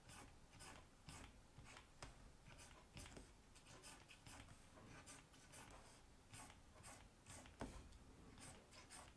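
Faint scratching of a stylus pen drawing short strokes on a graphics tablet, about two strokes a second.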